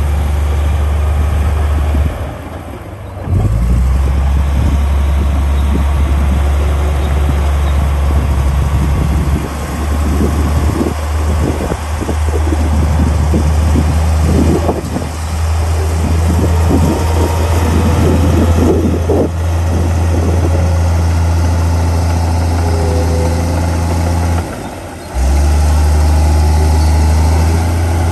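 Komatsu D53A crawler dozer's diesel engine running under load with a steady low drone, while the blade pushes a pile of soil and rocks. Irregular knocks and scraping come through in the middle stretch. The engine sound drops out briefly twice.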